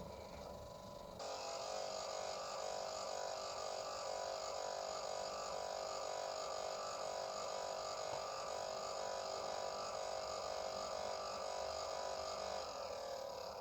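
Steady electronic buzz made of several tones at once. It switches on suddenly about a second in and slides down in pitch as it fades near the end.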